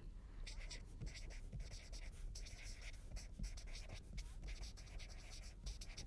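Felt-tip marker writing on paper: a run of faint, short scratchy strokes as a few words are written out.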